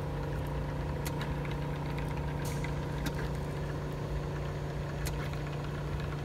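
Automatic LCD glass separator machine running with a steady hum while it holds the phone screen down by suction, with a few light clicks as the tray is worked back and forth.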